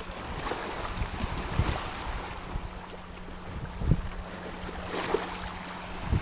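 Waves of a choppy high-tide sea washing in, with wind buffeting the microphone in gusty low thumps.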